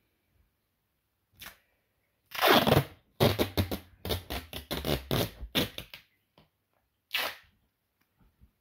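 Adhesive tape being ripped off its roll in several pulls: a short pull, a longer rip about two seconds in, then a rapid stuttering rip lasting nearly three seconds, and one more short pull near the end.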